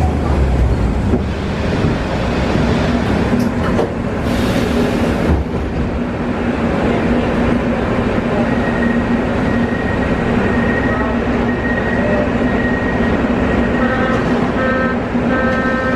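Inside a Wagonmash series 81 metro car standing at a station platform. A low rumble dies away in the first second, and a loud hiss about four seconds in comes as the doors open. The car's equipment keeps up a steady hum, and near the end short repeated beeps sound: the door-closing warning.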